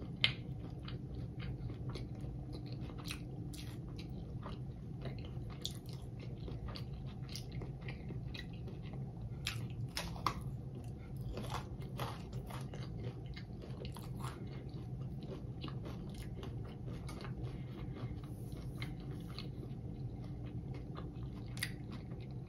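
Crunching and chewing as a person bites into fried hot Cheetos–crusted seafood, with many short crisp crunches scattered over a low steady hum.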